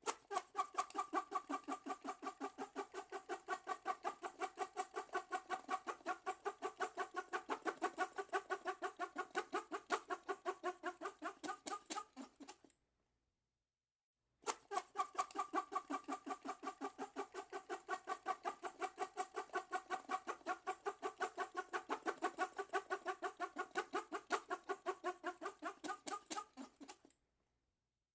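Drinking straw squeaking in rapid repeated strokes, several squeaks a second. There are two long runs with a pause of about a second and a half between them, and it stops briefly near the end.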